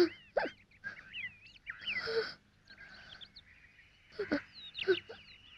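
Birds chirping in quick rising and falling calls, with a few short low sounds mixed in and a thin steady high tone through the last few seconds.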